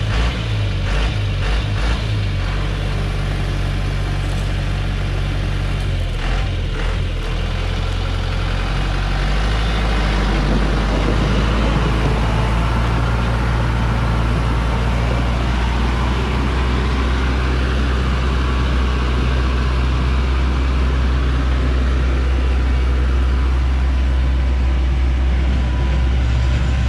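Loaded log truck's engine working hard under load as the truck climbs a steep, muddy slope, with a steady low drone that gets louder about ten seconds in.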